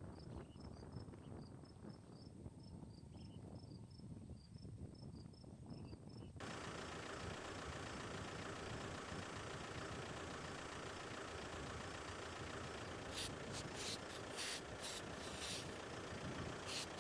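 Insects chirping in a regular quick pulse, about four or five chirps a second. About six seconds in the sound cuts abruptly to a steady low noise like a vehicle engine idling. From about thirteen seconds, short hissing bursts of an aerosol wound spray are heard.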